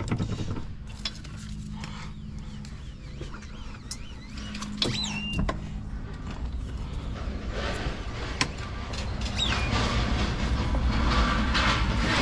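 Hand work on a truck's interior: clicks, knocks and scraping of tools and parts, with short squeaks about five and nine and a half seconds in, over a low hum.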